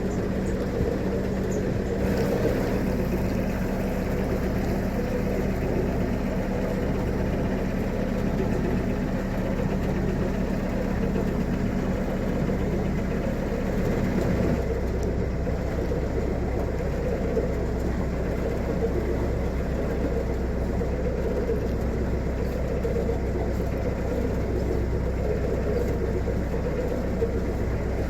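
Narrowboat's diesel engine running steadily under way. Its note changes about halfway through, with a steady hum giving way to a deeper rumble.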